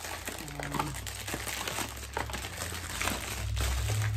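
Plastic packaging crinkling and rustling as wrapped items are handled and packed into a plastic storage bin, with many small sharp crackles.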